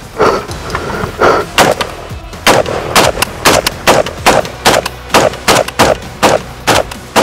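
Rifle gunfire: a few single shots about a second apart, then rapid shots at about three a second from a couple of seconds in.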